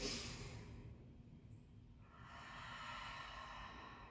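A woman taking deep breaths: a short, sharp breath at the start, then a longer breath lasting about two seconds that begins about two seconds in.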